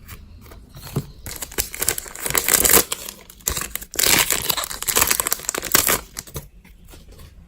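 A Pokémon card booster pack's foil wrapper being torn open and crinkled by hand, in two crackly stretches of about two seconds each, the first a little over a second in and the second about four seconds in.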